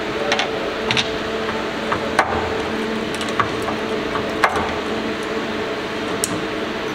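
Light, irregular clicks and clinks of welded cylindrical battery cells and their metal connecting strips knocking against a plastic jig plate as they are lifted out by hand, over a steady electrical hum.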